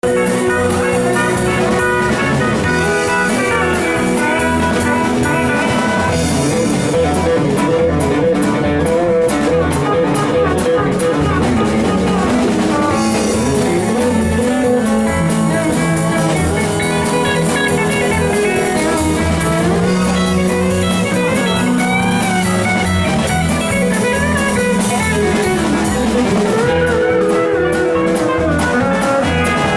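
Live band playing an instrumental country-blues passage, with electric guitar lines over a steady drum-kit beat.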